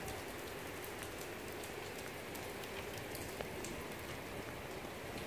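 Heavy rain pouring steadily onto wet paving: an even hiss with scattered ticks of individual drops.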